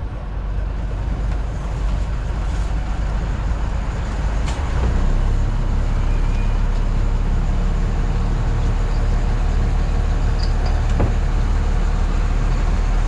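An engine running steadily with a deep, low drone, growing a little louder about five seconds in.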